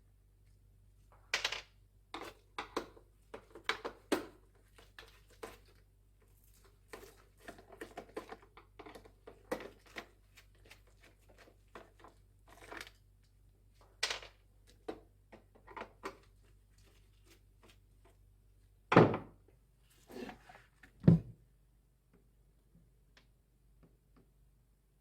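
Irregular clicks, taps and light knocks of fan parts and tools being handled during a fan motor repair, with two louder thunks about two seconds apart near the end.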